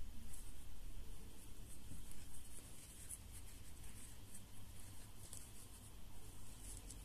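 Faint, irregular scratching and rubbing of a metal crochet hook pulling yarn through the stitches while popcorn stitches are worked, in short quick strokes over a steady low hum.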